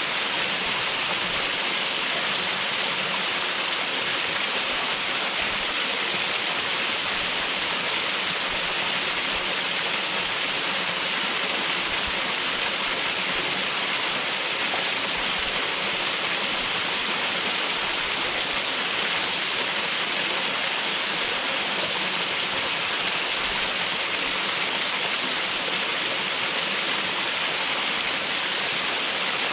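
Waterfall pouring and splashing steadily: an even, rushing hiss with no change in level.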